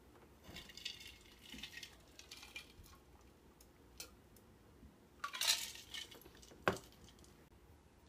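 Handling noises from a clear drinking cup as a child drinks from it: scattered rustles and light taps, a short louder noisy burst past the middle, and a sharp knock near the end.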